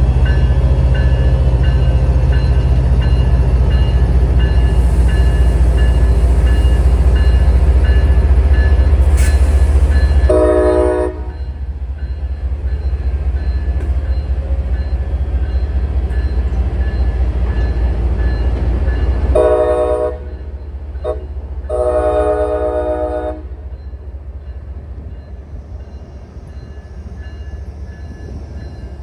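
Departing MBTA diesel passenger locomotive (an MPI HSP46) running loud as it accelerates past, its low rumble dropping off about a third of the way in as the coaches roll by. The locomotive's horn sounds once briefly, then again later in a short blast, a quick tap and a longer blast.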